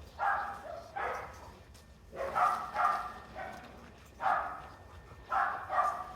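A dog barking in short, sharp barks, about eight over six seconds, some coming in quick pairs.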